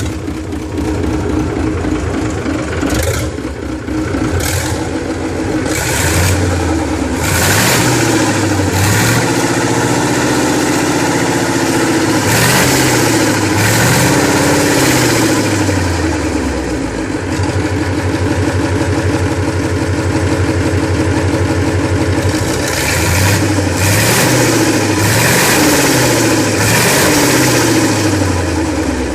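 Rebuilt UD RE8 V8 diesel engine running and being revved up and down several times, its engine note rising and falling between steadier running.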